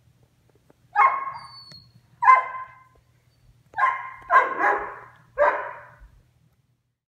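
Young Doberman barking: five barks, two spaced apart and then three in quicker succession.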